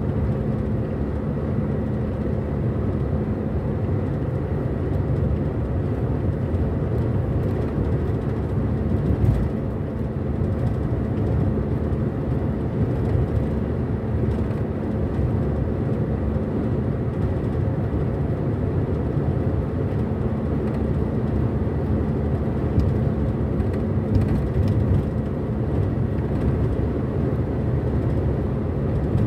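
Steady road noise and engine drone heard inside a car's cabin while cruising on a highway, a constant low rumble with no distinct events.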